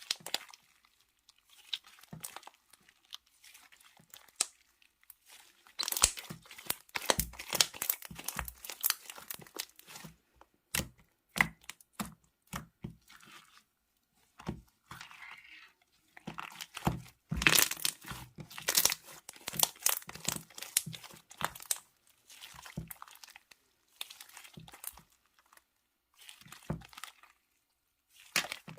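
Slime being squeezed and pressed by hand close to the microphone, giving runs of sharp crackling and popping clicks. The clicks are sparse at first, then come thick in two long stretches, one about six seconds in and another past the middle, with quieter gaps between.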